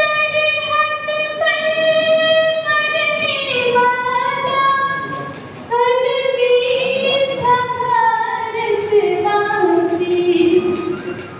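A young singer's voice singing a song for martyred soldiers, holding long notes in two phrases, with a short breath before the second phrase about six seconds in.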